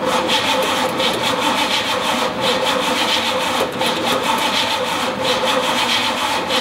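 1969 Chevy C10's starter motor cranking the engine continuously, a steady whine with a fast rough churn, without the engine catching: the carburetor has no fuel in it.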